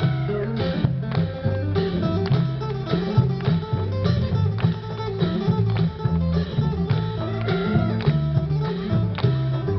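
Live Isan (northeast Thai) music from a ponglang ensemble: plucked string melody over repeating low bass notes and a steady percussive beat.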